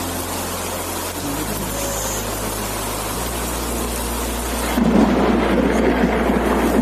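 Heavy rain pouring down. About five seconds in, the sound turns louder and deeper, into a rumble.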